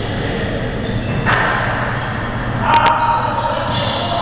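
Basketball game in a large echoing hall: sharp knocks of the ball on the hardwood court, once about a second in and twice in quick succession near three seconds, the pair followed by a short squeak, over steady hall noise and distant voices.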